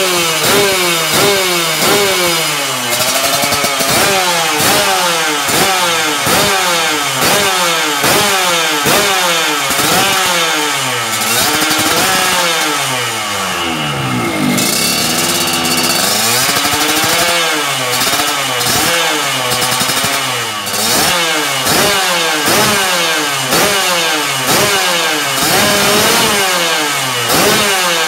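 Yamaha RX-King two-stroke single, bored to 140 cc, revved repeatedly through a drag-spec expansion-chamber exhaust. The revs rise and fall in quick blips, about one a second, with no pause.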